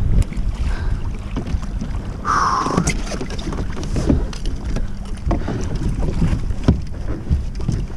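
Wind buffeting the microphone on a fishing kayak, with water slapping against the hull and scattered knocks and clicks of gear being handled. There is a short splashy hiss a little over two seconds in.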